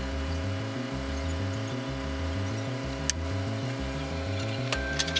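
Background music with a steady, repeating beat, and a sharp click about three seconds in.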